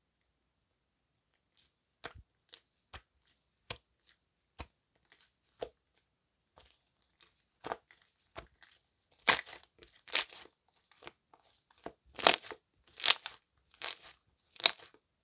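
Gel slime with foam worked into it, handled and squeezed by hand, giving separate sharp clicks and pops. They come sparsely at first, then more often and louder in the second half.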